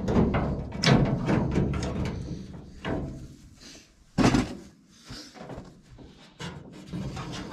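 Clunks and rattles of hands working on a bare steel truck door, with one sharp knock about four seconds in.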